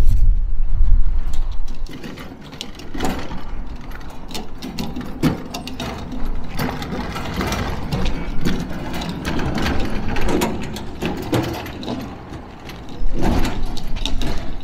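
Irregular mechanical clicking and rattling, with a low rumble for the first two seconds.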